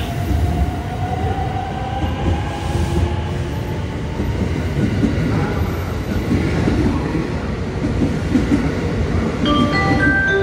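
Electric commuter train pulling out of the station and gathering speed, a steady rumble of wheels on rails under a motor whine that rises slowly in pitch over the first few seconds. A few chime tones start near the end.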